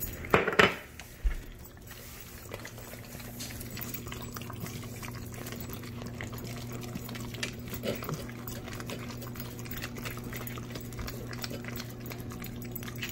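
Two dogs licking pumpkin purée off a ceramic saucer: quick wet tongue clicks and smacks against the plate. A couple of brief loud sounds in the first second and a half, and a steady low hum underneath.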